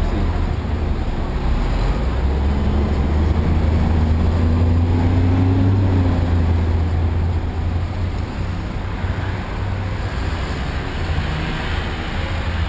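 Traffic at a busy city intersection: engines running as buses and cars cross, under a steady low rumble. One vehicle's engine note rises slowly between about two and seven seconds in.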